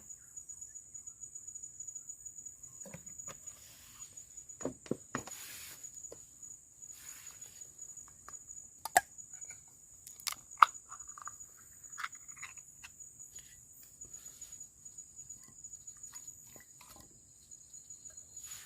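Insects in the forest trilling steadily at a high pitch, with scattered knocks and clicks of things being handled close by, two of them sharp and loud about halfway through.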